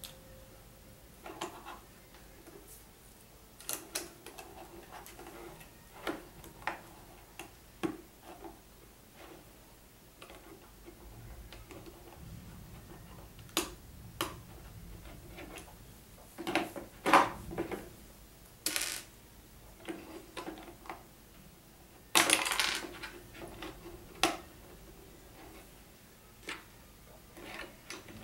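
Plastic Lego bricks clicking and clattering as pieces are picked out and pressed together, in scattered single taps with a few louder clacks, plus a couple of short rustles.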